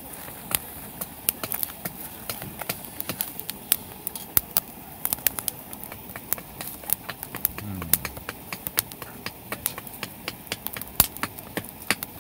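Wood fire in a small fire stand crackling, with frequent irregular sharp pops and snaps over a low hiss.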